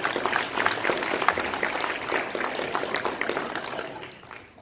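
Audience applauding, a dense run of hand claps that dies away about four seconds in.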